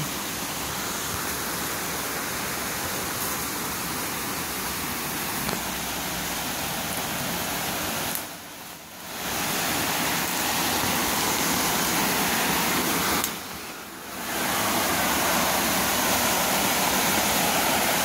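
Steady rush of water from a waterfall and its river. The sound drops away briefly twice, then comes back slightly louder.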